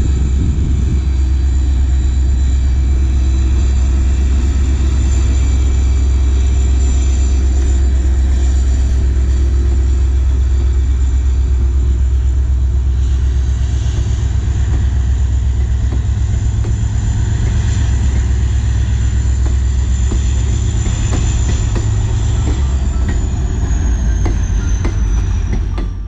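A moving train running: a loud, steady low rumble with faint rail clicks, and a thin high whine that falls in pitch near the end. It cuts off abruptly.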